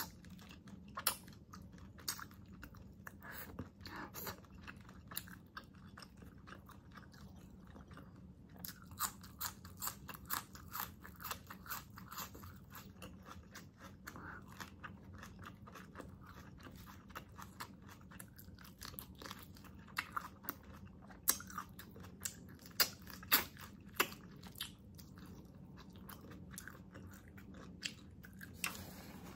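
Close-miked mouth sounds of eating spicy pork pata adobo by hand: chewing and biting, with quick irregular crunchy clicks that come thickest about nine to thirteen seconds in and again around twenty to twenty-five seconds.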